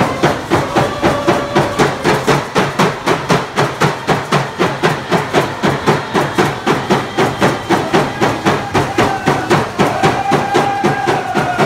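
Stick game song: hand drums beaten in a steady fast beat, about four strikes a second, with voices chanting long held notes over the drumming.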